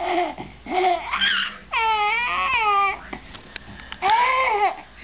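Baby vocalizing in high-pitched squeals and babbles: short sounds at first, then a long wavering squeal about two seconds in and another near the end.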